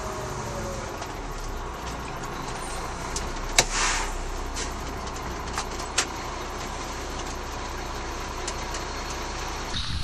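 Fire engine's diesel engine running steadily, heard from inside the cab, with a sharp click and a short hiss about four seconds in and another click around six seconds.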